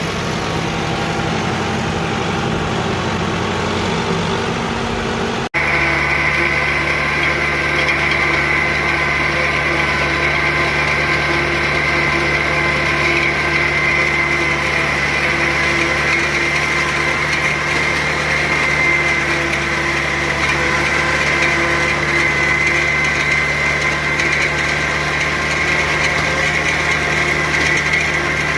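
Tractor engine running steadily under way. About five seconds in the sound changes suddenly to a louder, steady engine with a high whine over it.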